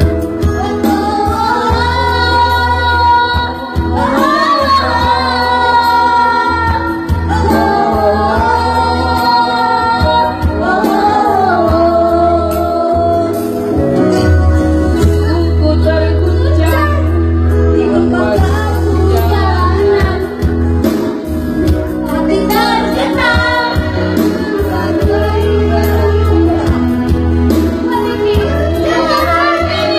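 A young child singing a melody over musical accompaniment with a steady low bass.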